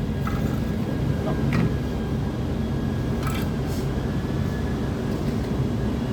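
Steady low mechanical rumble with a faint high whine, broken by a few short clicks.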